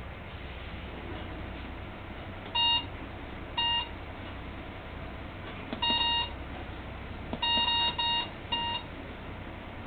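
Touchscreen keypad of an Intermec CV60 vehicle-mount terminal beeping as its keys are pressed: seven short, identical beeps at irregular intervals, the middle one a little longer. A steady low machine hum runs underneath.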